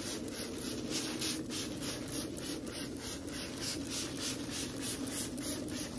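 Thin plastic grocery bag rustling and crinkling as hands work a wet T-shirt inside it, with a steady rubbing texture.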